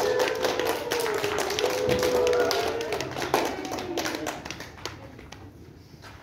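Applause from a small string orchestra: hand clapping mixed with tapping, a dense patter that thins out and fades away over the last couple of seconds.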